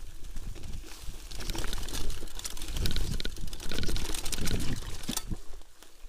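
Mountain bike rolling fast down a rough dirt forest trail: dense rattling and clicking of the bike over bumps with tyre noise and rumble, busiest from about a second and a half in until just after five seconds.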